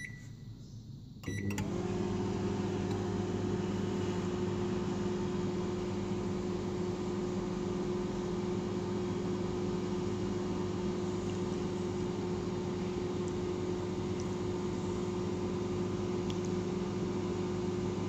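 Microwave oven being started: one keypad beep, then about a second later a couple of relay clicks as the oven switches on and settles into a steady low hum for its one-minute heating cycle.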